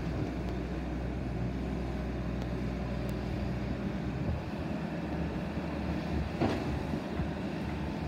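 Bobcat T650 tracked skid steer loader's turbo-diesel engine running steadily as the machine moves and raises its bucket. The engine note changes about halfway through as the lift arms go up under hydraulic load, and there is a brief noisy burst about six and a half seconds in.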